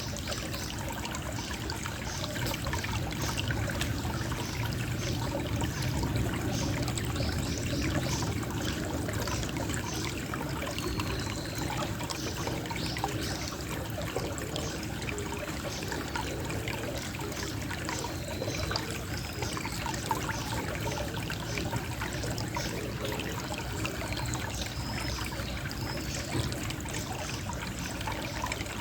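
Gentle, steady trickle of flowing water, with an acorn dropping and rolling about four seconds in. A few brief high bird chirps come now and then.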